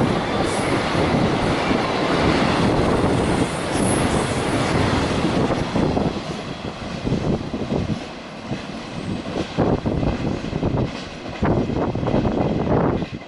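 Freight train rushing through the station at high speed: a steady roar of steel wheels on rail for about six seconds, then rhythmic clacking over the rail joints as the roar thins and grows quieter towards the end, the tail of the train passing.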